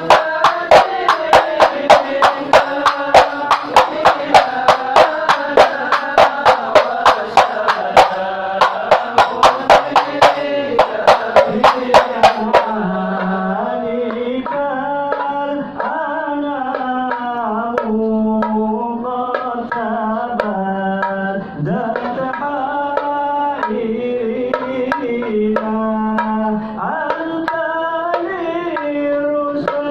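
Hand frame drums (rebana) beaten in a steady rhythm, about two to three strokes a second, under Maulid shalawat singing. About twelve seconds in the drumming stops and one voice chants on alone in long, winding melodic phrases.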